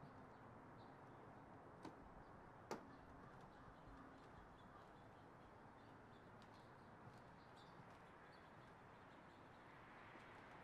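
Near silence: faint steady ambience with a few soft, short high chirps and two sharp clicks, the louder one a little under three seconds in.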